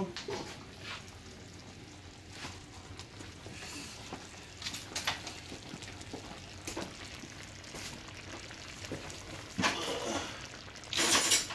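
Thick cream sauce simmering in a skillet, with scattered soft pops and ticks. A short, loud, bright noise comes near the end.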